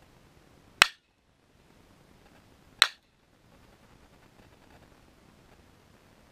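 Two sharp single cracks about two seconds apart: .22 LR shots from a Ruger 10/22 semi-automatic rifle, heard from downrange near the can targets.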